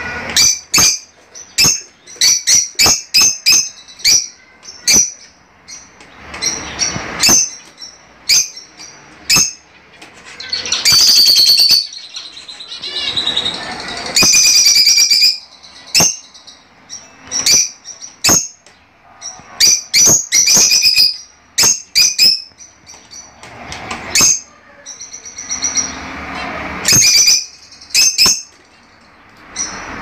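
Fischer's lovebirds calling: rapid, shrill, high-pitched chirps, with longer chattering bursts about 11 and 15 seconds in.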